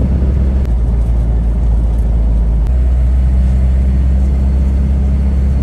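Loud, steady low rumble of a vehicle driving, with engine and road noise.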